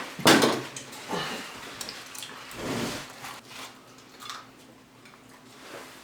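Close-miked eating: wet chewing and mouth sounds, with a sharp click or clink about a third of a second in, fading quieter in the second half.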